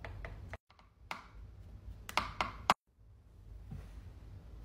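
Light clicks and taps of a toy serving paddle against the plastic pot of a toy rice cooker as play rice is scooped out. There are a few clicks near the start and a quick cluster of sharper ones about two seconds in.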